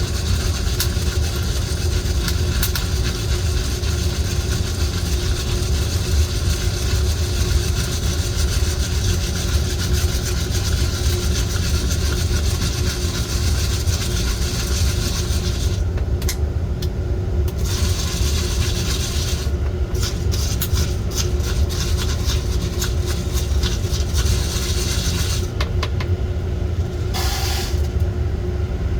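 Coffee roaster running with a steady low rumble from its drum and fan, over a hiss that drops away briefly a few times. Many small sharp cracks are scattered through it, from the beans roasting in the drum.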